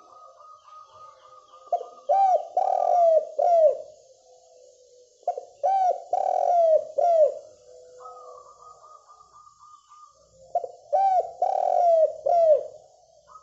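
Spotted dove (derkuku) cooing in loud phrases of several throaty, falling coos, three phrases in all. Between the phrases a fainter rapid, even trill sounds.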